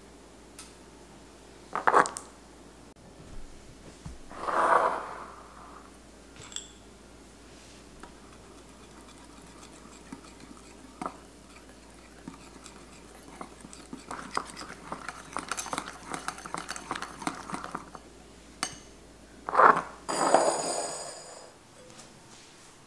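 Wire whisk stirring melting chocolate and cream in a ceramic bowl, its wires ticking quickly against the bowl for several seconds in the middle. Around that there are a few louder knocks of dishware on the counter, the last one near the end ringing like a glass bowl set down.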